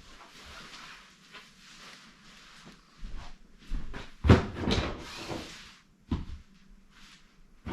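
Handling of packaging as items are taken out: soft rustling, a sharp knock about four seconds in followed by more rustling, and a lighter knock a couple of seconds later.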